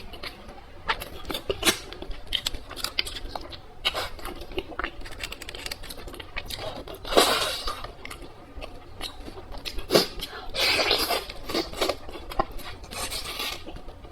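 Close-miked eating sounds: a person chewing food, with a rapid run of small wet clicks and crisp crackles, and three longer noisy chewing or slurping spells, about halfway through, a little later and near the end. Occasional light clicks of cutlery or dishes mix in.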